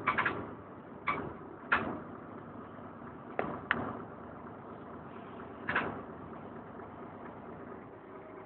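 Inside a DAF DB250LF double-decker bus: about half a dozen sharp knocks and clatters, spaced unevenly over the first six seconds, over the bus's steady low engine hum, which carries on alone after that.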